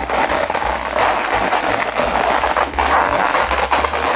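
Latex 260 modelling balloons rubbing and crackling against each other and the hands as two inflated bubbles are twisted together.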